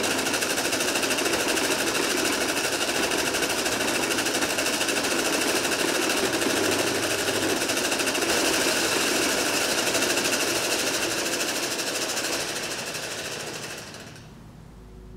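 Split-flap display with many motor-driven flap modules flipping at once: a dense, fast clatter of flaps that dies away near the end as the letters settle into place.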